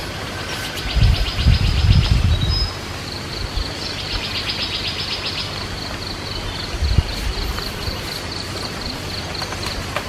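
Insects trilling steadily in a fast, high-pitched pulse that swells louder twice, with a few low muffled thumps in the first few seconds and once more later.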